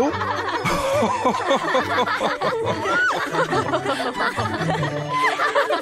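Several voices laughing and chuckling together over light background music.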